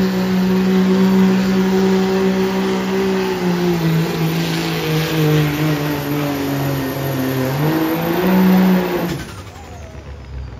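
Dodge Ram diesel pickup pulling a weight-transfer sled at full throttle. The engine holds a steady high note, drops lower and wavers as the sled drags it down about three and a half seconds in, climbs again briefly, then falls away when the throttle is lifted about nine seconds in.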